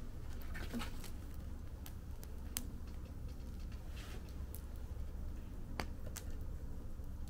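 Wood fire in a fire pit crackling: scattered sharp pops and snaps from the burning wood, one standing out about two and a half seconds in, over a steady low rumble.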